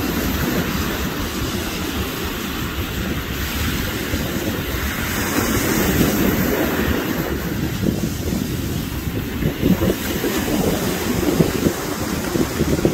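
Wind buffeting the phone's microphone over the steady wash of surf on a sandy beach.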